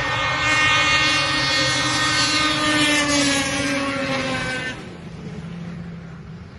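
Snowmobile engine running loud, its pitch slowly falling, then dropping off sharply about five seconds in, leaving a quieter steady low engine hum.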